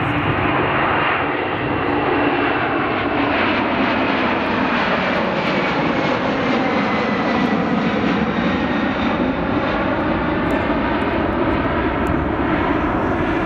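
Jet airliner taking off, its engines at takeoff power making a loud, steady noise, with a faint high whine that slowly falls in pitch as it passes.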